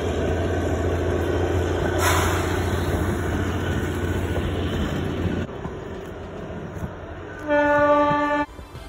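Passenger train running past, a steady low engine hum and rumble of the carriages that drops away about five and a half seconds in. Near the end a horn sounds once for about a second.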